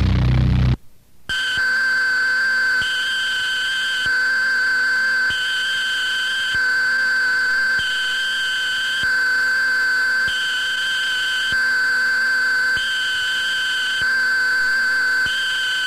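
Heavy, loud band music from the demo tape cuts off abruptly within the first second. After a short gap a steady, high electronic tone starts, with a second, higher tone switching on and off about every 1.2 seconds in a slow, even pattern, and faint regular clicks underneath.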